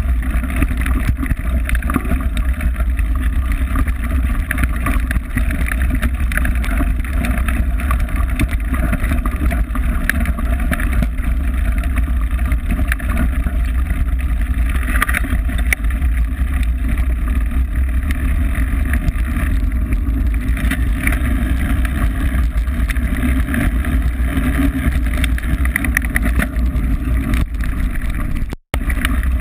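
Mountain bike riding fast over a loose gravel track, heard from a camera on the bike: a loud, steady rumble of wind buffeting the microphone mixed with the rattle of tyres on gravel. The sound cuts out for an instant near the end.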